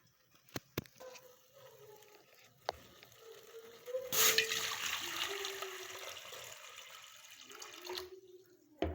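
A few light clicks and knocks, then about four seconds in water starts pouring or running for several seconds and stops abruptly.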